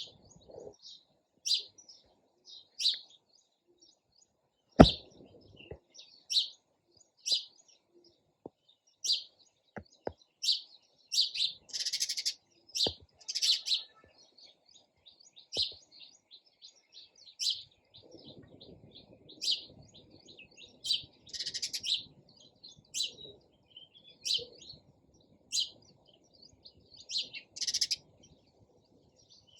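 Sparrows chirping: short, repeated chirps, several a second, with some louder bursts. A single sharp click about five seconds in.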